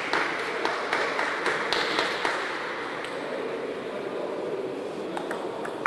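Scattered light taps of a table tennis ball on the table and rackets over a steady hall murmur. The murmur is louder for the first couple of seconds.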